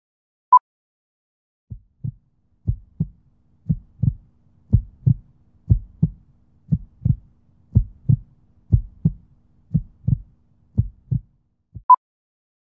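A short electronic countdown beep once a second, heard once at the start and again near the end. Between them, a heartbeat sound effect: low double thumps, like a lub-dub, about once a second.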